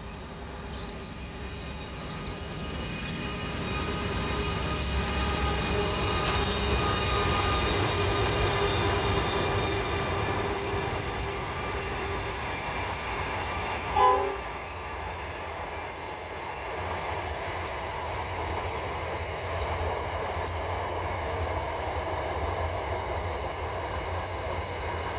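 Diesel-hauled freight train approaching and passing, its locomotive engines droning with a steady humming tone that grows louder over several seconds. About fourteen seconds in there is a brief loud blast, then the wagons rumble past steadily.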